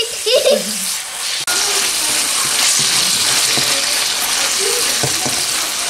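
Chicken pieces and onion sizzling in hot oil in a nonstick wok as they are stirred with a plastic spatula. The sizzle jumps up suddenly about a second and a half in and then holds steady.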